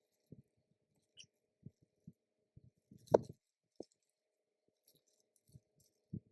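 Scattered light handling knocks and clicks, with one louder knock about three seconds in.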